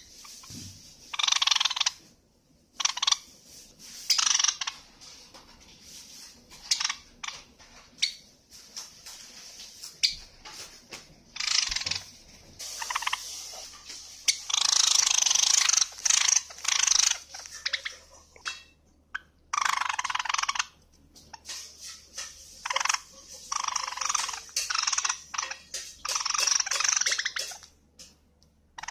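Java sparrow singing and calling in repeated bursts of rapid, clicky chattering notes, about eight bursts with scattered single clicks between them.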